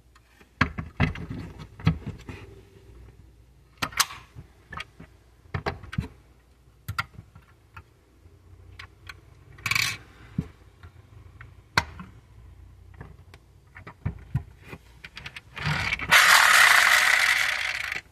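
Sharp clicks and knocks of the small hinged doors and rear hatch of a 1/24 diecast Honda Civic Type R model being opened and shut. Near the end the model's built-in sound module plays a loud electronic engine-start-and-rev effect through its small speaker for about two seconds, then cuts off suddenly.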